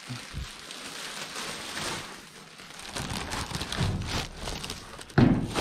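Plastic rubbish bags rustling and crinkling as hands dig through a full dumpster, with one loud thump near the end.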